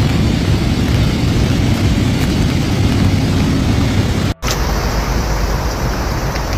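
Steady outdoor roar of wind buffeting the microphone mixed with rushing floodwater, heaviest in the low end. It cuts out for an instant a little over four seconds in and then carries on.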